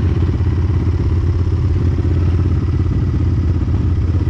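Yamaha Raptor 700 quad's single-cylinder four-stroke engine running steadily at low revs, a fast even thumping with no revving.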